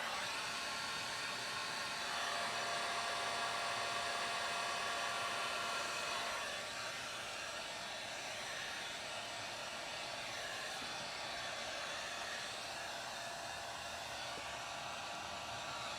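Steady rushing air noise from a small motor-driven blower; a faint whine in it stops about six and a half seconds in and the sound drops slightly.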